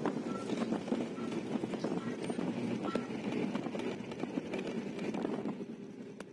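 Road noise heard inside a moving car's cabin: a steady rumble of engine and tyres with many small rattles and knocks, growing quieter near the end.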